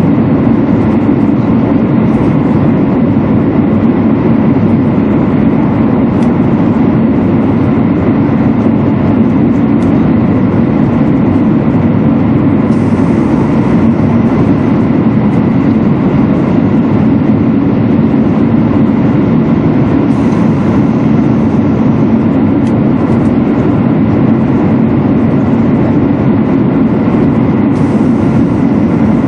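Steady running noise inside a Shinkansen 200 series passenger car at speed: a constant low rush of wheels on rail and air along the body, holding the same level throughout.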